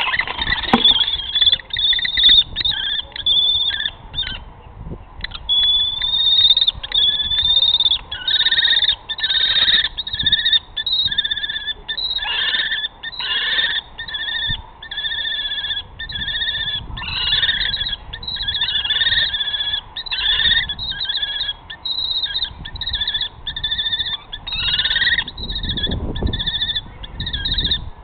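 Common kestrel calling at close range: a long series of short, whining notes, two or three a second, hardly pausing. A flurry of wingbeats at the start.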